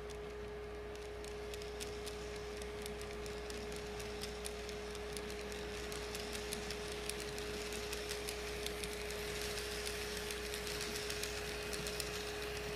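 Model train, a 485-series Yamadori set, running along the layout track: a steady high hum with many light irregular clicks of the wheels on the rails, growing a little louder toward the end.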